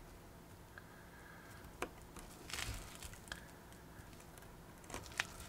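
Faint handling of small paper model pieces: a brief crinkle of paper about halfway through and a few sharp little clicks, roughly one every second and a half.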